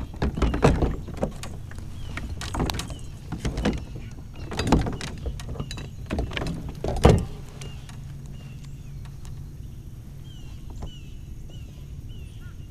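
Knocks and rattles of gear being handled in a plastic fishing kayak, several sharp ones in the first seven seconds, over a steady low hum. A bird chirps repeatedly near the end.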